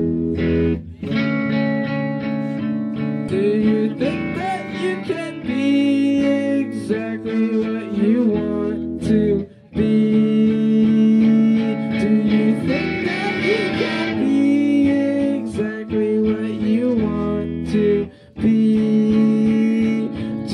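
Amplified guitar music played live, the chords ringing steadily, with the playing breaking off for a moment twice.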